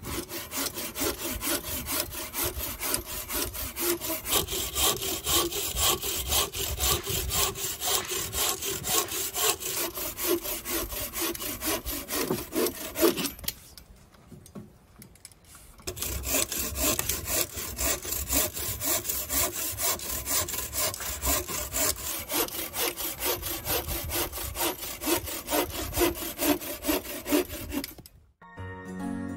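Bow saw cutting through a firewood log with quick, steady back-and-forth strokes, in two spells with a pause of about two seconds a little before halfway.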